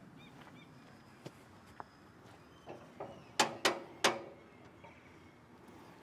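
A few sharp knocks, three loud ones close together about three and a half seconds in, from equipment being handled on a chainsaw sawmill. Faint bird chirps near the start.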